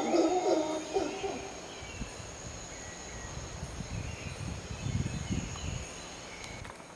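Howler monkey's deep howl trailing off within the first second. Then a steady high insect drone with a few faint bird chirps, and a low rumble a few seconds in.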